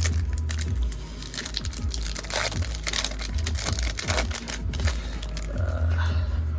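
Foil wrapper of a Yu-Gi-Oh booster pack crinkling and tearing as the pack is ripped open, a dense run of quick crackles.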